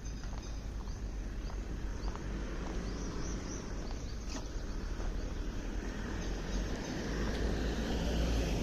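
Outdoor walking ambience: a steady low rumble that grows louder near the end, with faint high chirps of small birds and a few scattered footstep clicks.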